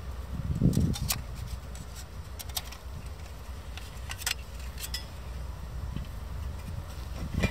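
Thin perforated metal stove panels clicking and tapping against each other as they are slotted together by hand, with a dull thump about a second in, over a steady low rumble.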